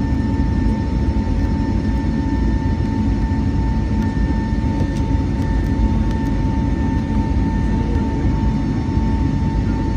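Airbus A320neo cabin noise: a steady, loud low drone from the engines and airflow, with a constant whine riding on top.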